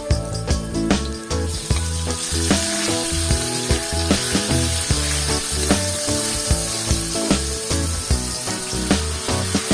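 Food sizzling in hot oil in a pan, a steady hiss that comes in about a second and a half in, under background music with a regular beat.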